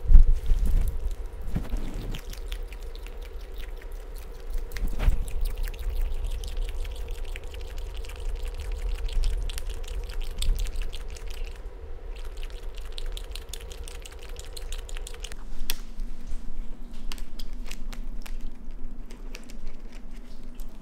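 A raccoon chewing and biting into insects: a run of small clicks and smacks. A steady low hum sits behind it and drops in pitch about two-thirds of the way through.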